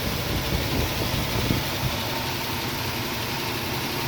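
2004 Nissan Xterra engine idling unevenly, with irregular stumbles in the first couple of seconds: a misfire that sets in as soon as the engine warms up.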